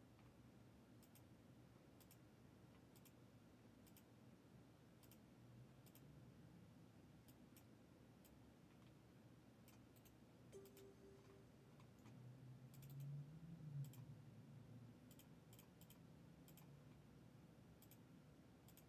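Faint, scattered computer mouse clicks, many in quick pairs of press and release. A faint low rumble swells briefly about two-thirds of the way through.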